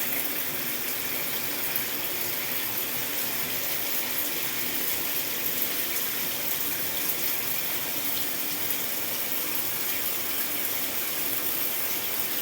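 Shower water running in a steady, continuous spray, splashing in a small bathroom.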